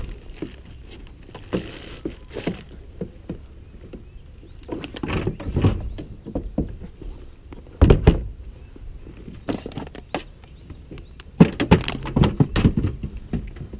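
Scattered knocks and thunks on a fishing kayak's deck and hull as a caught crappie and gear are handled, loudest about eight seconds in and again in a cluster near the end.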